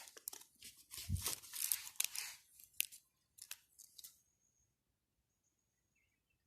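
Rustling, tearing and crackling of dry material being handled, a busy run of scrapes and sharp crackles that stops a little past four seconds in.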